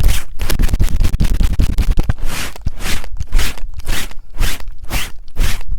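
Fast, aggressive scratching and rubbing strokes made directly on a TASCAM recorder's microphones. The strokes are dense and choppy for about the first two seconds, then settle into quick, even sweeps about three a second.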